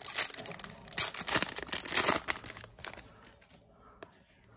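A foil Yu-Gi-Oh booster pack wrapper being torn open, a run of rapid crackling rips that stops about three seconds in.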